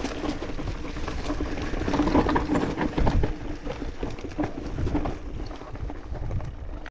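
Mountain bike riding down a rocky dirt trail: tyres crunching over dirt and stones, with many rattling knocks and clicks from the bike as it bounces over the rough ground.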